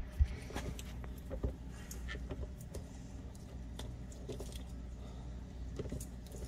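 Scattered light clicks, taps and scrapes of eastern box turtles' claws and shells and toads moving on a stainless steel tub, with one sharper knock just after the start, over a steady low hum.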